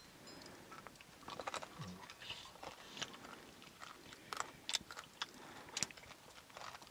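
Faint chewing and biting of food, with scattered small crunches and clicks.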